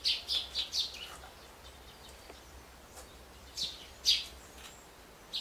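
Small bird chirping: a quick run of short high chirps in the first second, then two more about three and a half and four seconds in, and one near the end.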